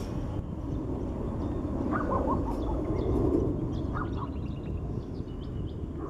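Low, steady rumble of a twin-engine jet airliner climbing away overhead. Over it, birds chirp several times, most around two to five seconds in.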